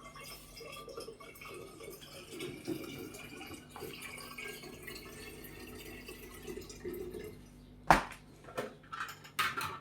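Dishwashing at a kitchen sink: faint dripping and trickling water with small handling noises, then a sharp clink of a dish about eight seconds in and a few lighter clinks near the end.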